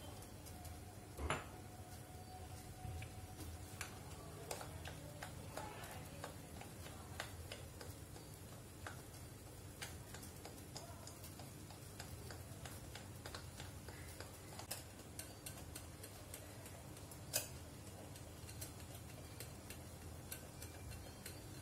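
Maida batter being stirred and worked in a glass bowl: faint, irregular clicks and taps of the utensil against the glass, with two sharper knocks, one about a second in and one near the end.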